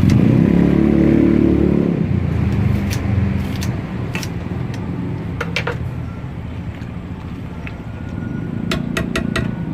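A motor vehicle engine passing close by, loud for about two seconds and then fading, with another engine building near the end. Scattered sharp clicks and clinks through the middle and late part.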